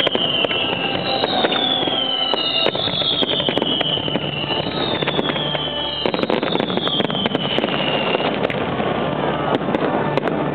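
Fireworks display: a string of high whistles, each falling in pitch over about a second, one after another over continuous crackling and sharp pops of bursting shells. The whistles stop near the end while the crackle goes on.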